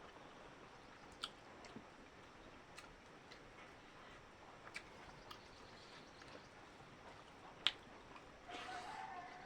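Quiet mukbang eating sounds: scattered sharp clicks and mouth smacks, the loudest about three-quarters of the way through, then a louder, noisier eating sound lasting about a second near the end.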